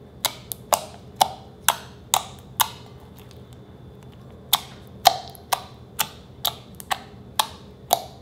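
White slime popping with sharp clicks as fingers press into it, about two pops a second, in two runs with a pause of nearly two seconds in the middle.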